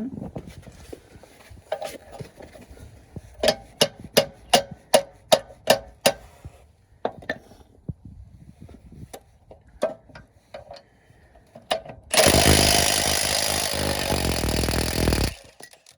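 Workshop strip-down of a rusty car rear axle: a run of about nine sharp metal strikes, roughly three a second, then scattered knocks, and near the end a power tool runs loudly for about three seconds before cutting off.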